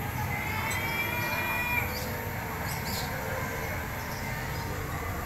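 Amusement ride running, a steady low rumble from its drive and motion, with a high, even whistle-like squeal from about half a second in that lasts just over a second.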